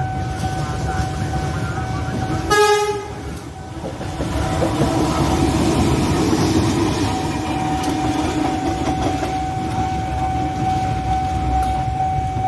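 A CC206 diesel-electric locomotive gives one short horn blast about two and a half seconds in, then passes close by with engine rumble and wheels running on the rails. Under it, the level-crossing warning alarm holds a steady tone.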